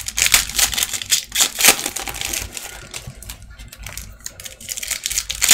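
Trading cards being flipped and shuffled in the hands: rapid, irregular clicking and rustling of card stock.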